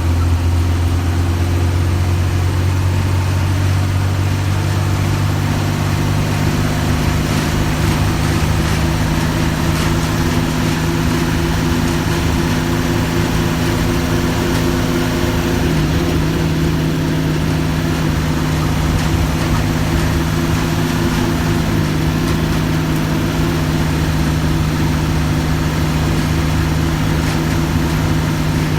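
Mercedes-Benz OF-1315 bus's diesel engine running steadily at a constant speed, with a low rumble that eases a little after about six seconds.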